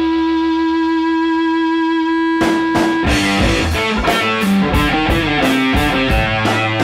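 Background music: a held chord rings, then a full band with a steady beat comes in about two and a half seconds in.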